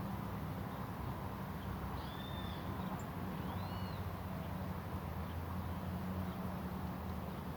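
Two short, arched bird calls, about two seconds and three and a half seconds in, with a faint high chirp between them, over a steady low background rumble.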